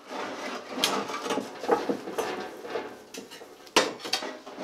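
Metal clanking and rattling as a heavy drill press is gripped and tipped back on a two-wheel hand truck, irregular clatter with a couple of sharper knocks, one of them a little before four seconds in.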